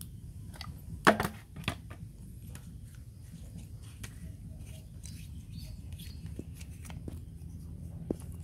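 Handling noise: a sharp knock about a second in and a smaller one just after, then scattered light clicks over a low steady hum.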